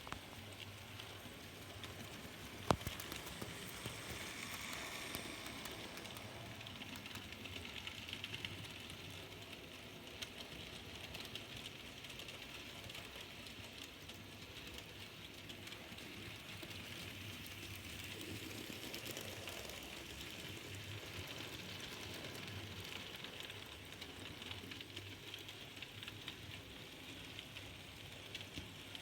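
N gauge model locomotive running on the track: a steady small-motor hum with a fine, continuous ticking from the wheels on the rails, and one sharp click about three seconds in.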